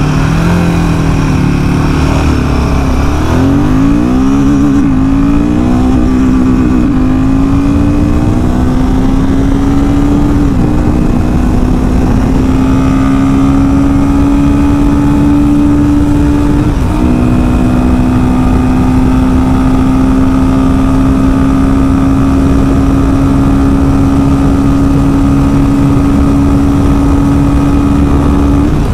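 Royal Enfield Himalayan 450's single-cylinder engine pulling hard through the gears at full throttle toward top speed. Its pitch climbs steadily in each gear and drops briefly at the upshifts, about a third of the way in and again a little past halfway.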